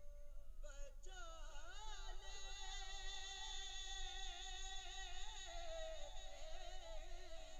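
A man's solo voice singing a naat into a microphone, in a wavering, ornamented melody. The voice breaks off briefly about half a second in, then picks up again. A steady low electrical hum runs underneath.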